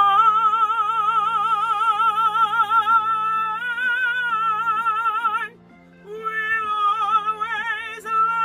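A man belting a long, high sung note in full voice with a wide, even vibrato, up around B4, over a plucked guitar backing. About five and a half seconds in he breaks off briefly, then holds another belted note.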